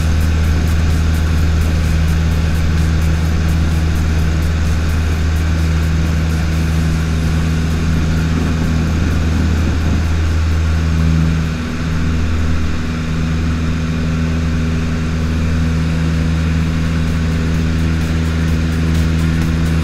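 Piston engine and propeller of a high-wing single-engine trainer running steadily at high power, heard inside the cockpit during a touch-and-go takeoff roll and lift-off. About halfway through there is a brief dip in level and a shift in the engine tone.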